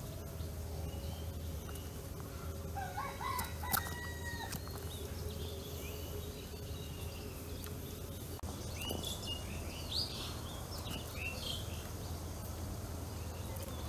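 Birds calling in the background: a few short calls about three to four seconds in and a run of higher chirps around nine to eleven seconds, over a steady low hum.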